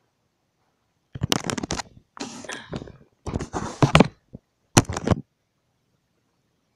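Handling noise: scraping and rubbing right against the microphone, in four bursts of about a second each from about one to five seconds in, with sharp knocks inside them.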